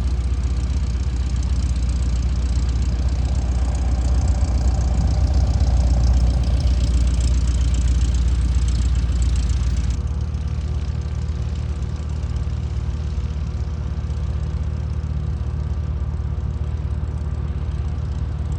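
Engine running steadily, getting a little louder from about four seconds in and easing off again around ten seconds.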